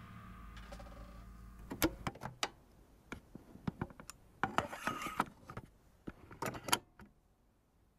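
A drum kit ringing out and fading after its final hit. Then come a scatter of small clicks and knocks as drumsticks are handled and laid on the snare drum head.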